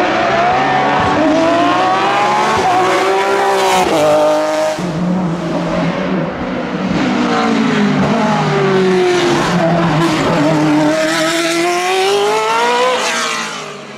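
Racing car engines at full throttle, their pitch climbing and dropping back sharply at each upshift, several times over. First a GT car accelerates out of a hairpin, then an open sports prototype.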